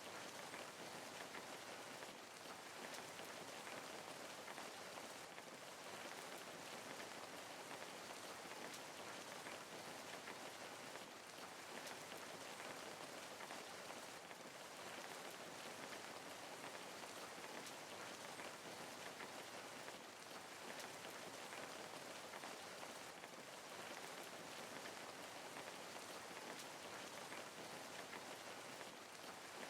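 Steady rain falling, an even hiss with a patter of many small drops.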